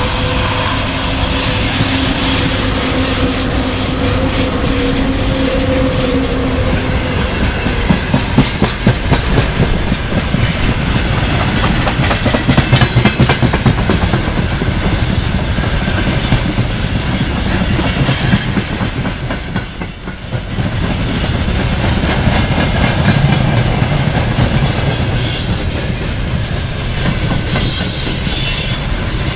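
VL80S two-section electric freight locomotive passing close by with a steady hum for the first several seconds, followed by a freight train's gondola wagons rolling past, their wheels clicking rhythmically over the rail joints.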